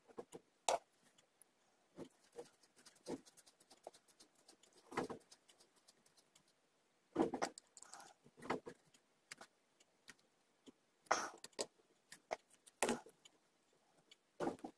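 Faint, irregular clicks, taps and short scrapes of a screwdriver working a small wooden part fitted with metal hardware, handled in gloved hands. The louder scrapes come about five, seven, eleven and thirteen seconds in.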